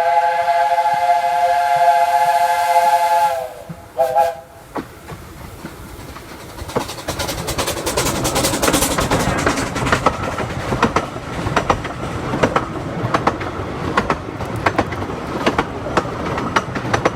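Steam locomotive whistle: one long blast of several tones at once lasting about three and a half seconds, then a short toot. After that the train runs past, its wheels clicking over rail joints and growing louder.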